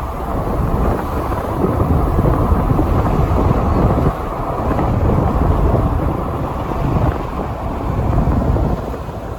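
Wind buffeting the microphone during a ride: a low, gusty rumble that rises and falls unevenly, with a brief dip about four seconds in.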